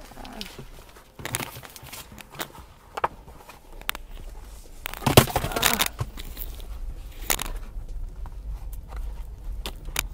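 Handling noises: crackling and rustling of paper food packaging and knocks of the phone being moved about, loudest about five seconds in, over a faint low hum.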